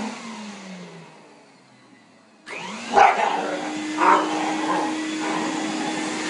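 Vacuum cleaner switched off, its motor winding down with a falling hum to near quiet, then switched back on about two and a half seconds in, spinning up with a rising whine to a steady run. A dog barks twice just after it restarts.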